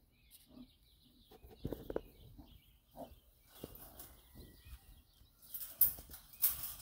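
Brown bear rubbing its back up and down against a wire-mesh fence, the mesh scraping and rattling in two louder rasping bursts near the end, after a few scattered knocks. The rubbing is put down by a bear rescuer to itching, shedding winter fur, parasites or scent marking.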